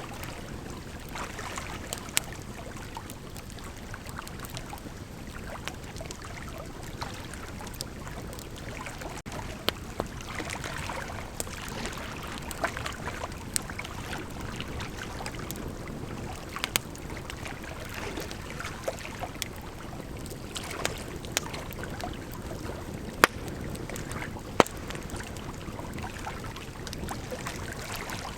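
Bonfire burning: a steady rushing hiss with irregular sharp crackles and pops from the burning wood, two of the loudest pops coming about a second and a half apart near the end.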